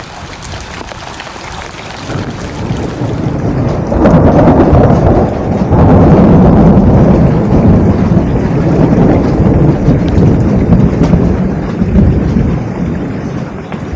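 Rain falling during a storm, with a loud low rumble that swells about four seconds in and eases near the end.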